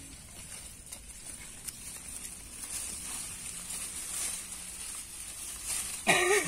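Faint rustling and scraping of hands digging in soil around serut roots and moving through leafy undergrowth, with a steady high hiss behind. A brief voice sounds near the end.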